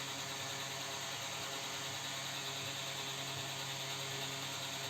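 Steady low hum with an even hiss over it, unchanging and with no distinct knocks or clicks.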